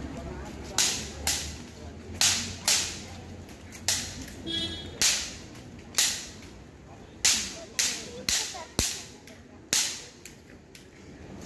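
A series of sharp cracks, about a dozen at irregular intervals a half-second to a second and a half apart, each ringing out briefly.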